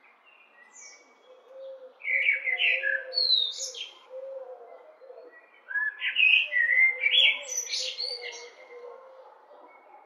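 Common blackbird (Eurasian blackbird) singing: two song phrases, about two seconds in and again near six seconds, each moving from lower whistled notes up into high, thin notes, with quiet pauses between.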